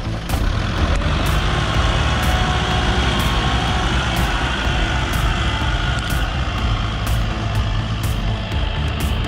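Kubota M6040 tractor's diesel engine running steadily while the tractor pushes soil with its front dozer blade.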